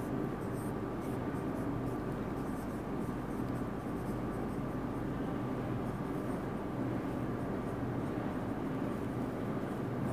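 Marker pen writing on a whiteboard, faint short strokes over a steady low background hum.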